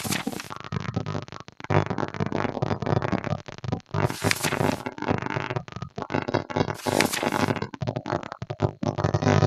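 Page-turn sound effects of a digital flipbook, a brief papery swish three times, at the start, about four seconds in and about seven seconds in, over continuous background music.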